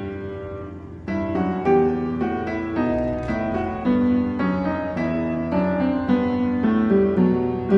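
Background piano music: a note fades out and, about a second in, a new run of notes begins at a gentle, even pace.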